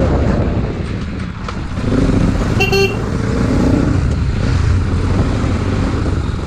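Bajaj Pulsar NS 200 single-cylinder engine running under way, with steady road and wind noise. A short horn toot comes about three seconds in.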